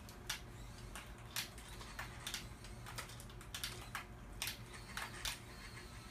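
Cats licking and nibbling a squeeze-tube cat treat: a string of faint, sharp, irregular tongue clicks and smacks, about two or three a second, over a low steady hum.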